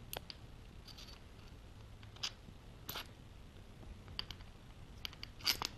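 Faint, scattered metallic clicks as the shaft and bearing are turned and handled inside a large aluminium toothed belt-drive pulley, with a few closer together near the end.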